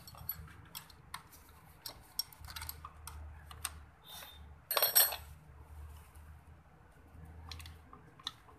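Clicks and clinks of a steel wrench and loose metal parts on a tractor diesel engine as it is worked on by hand to unbolt the starter motor, with one louder metallic clatter about five seconds in.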